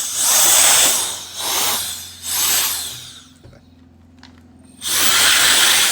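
CCV cordless electric air duster, a small brushless-motor turbo fan, blowing air in blasts. There are three quick blasts, then a pause of nearly two seconds, then a longer blast near the end.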